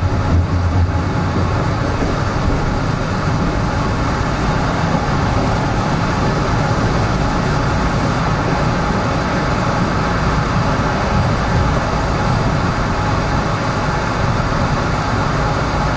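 Toronto subway train running through a tunnel, heard from inside: a steady rumble of wheels on rail and running gear. In the first second a train on the next track rushes past, adding a heavier low rumble.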